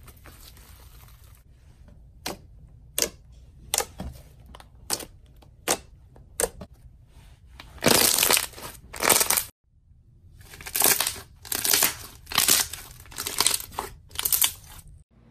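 Crunchy slime being pressed and squeezed by hand. It starts as separate sharp crackles, roughly one every half second to second. About eight seconds in it turns to longer, louder crunching bursts, with a quick run of them near the end.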